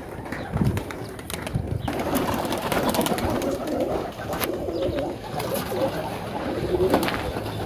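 Several pigeons cooing, their low coos overlapping, with a few light clicks.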